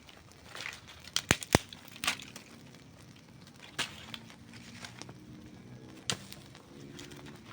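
Campfire crackling: burning wood gives scattered sharp pops over a low hiss, the loudest a quick pair about a second and a half in.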